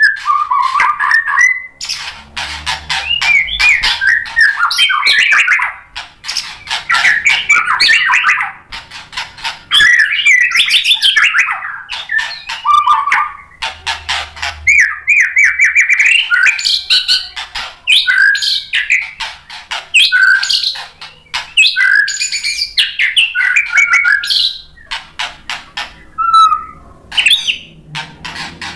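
White-rumped shama singing hard: long runs of varied whistled phrases mixed with harsh chattering and quick clicking notes, the loaded, mimicry-filled song that is used to rouse other shamas. The song breaks off briefly a few times.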